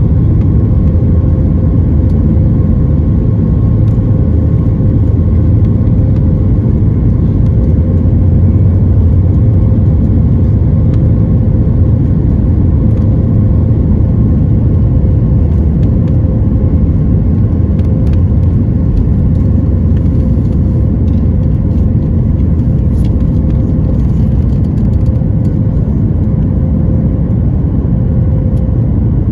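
Inside the cabin of a Boeing 737-8 MAX during the takeoff roll and lift-off: its CFM LEAP-1B engines at takeoff thrust give a loud, steady rumble with a steady hum over it, and faint clicks and rattles come through in the second half.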